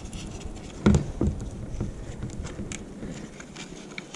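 Handling noise of a bike helmet being put on and its chin strap fastened: rustling and small clicks, with two dull bumps about a second in.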